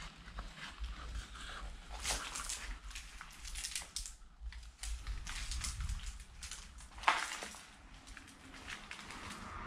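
Footsteps crunching and rustling over debris, paper and loose cables on a floor, in irregular scuffs, with one sharp crack or knock about seven seconds in.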